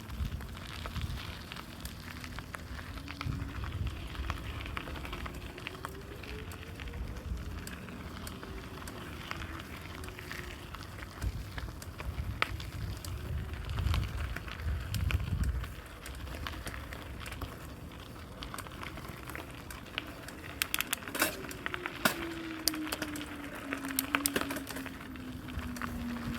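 Whine of a small vehicle's motor riding along, its pitch rising and then falling with speed, and falling again near the end. Steady crackling and low wind rumble run underneath.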